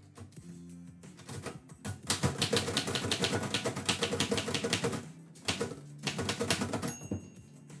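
Typewriter keys struck in quick runs: a long burst of typing, a brief pause, then a shorter burst.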